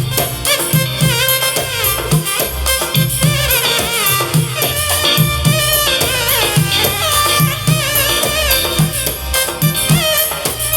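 Music with a steady drum beat and a wavering, ornamented melody line, in a folk or Middle Eastern style.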